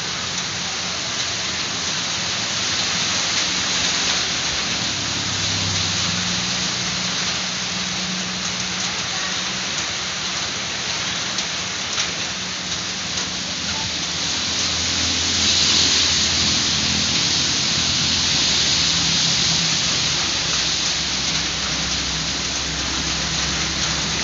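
Steady heavy rain, a dense continuous hiss with scattered sharper drop ticks, growing a little louder about two-thirds of the way through.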